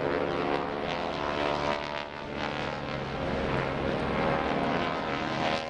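Propeller airplane engine running steadily, a dense, even drone with a slight dip in loudness about two seconds in.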